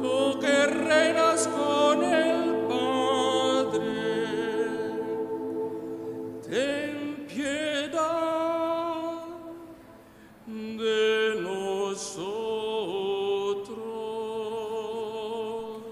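A man's solo voice singing slow, long notes with vibrato and upward slides into the notes, over steady chords held by a choir. The singing breaks off for a moment about ten seconds in, then picks up again.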